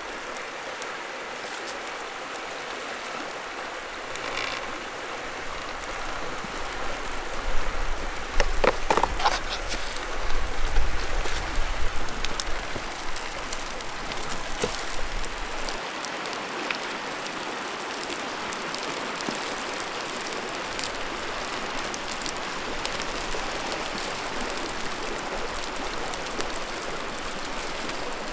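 Steady rush of river rapids, with the crackle of a small birch-bark fire catching. About 7 to 12 seconds in, a few seconds of louder knocks and rustling as wood is laid on the fire.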